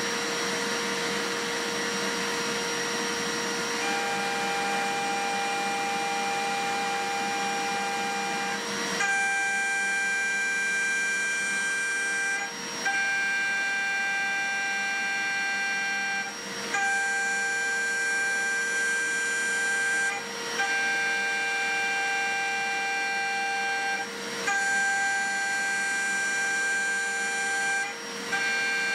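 Home-made CNC milling machine face milling steel with an end mill at 12,000 rpm: a steady spindle whine, joined about four seconds in by the higher, ringing tone of the cutter in the steel. From about nine seconds in, the cutting tone comes in passes of roughly four seconds, each broken by a brief dip.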